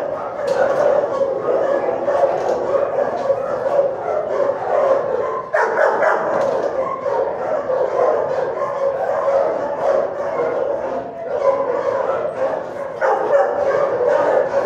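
Shelter dogs barking and yipping continuously in a kennel block, many overlapping barks forming a steady din, with a brief lull about five and a half seconds in.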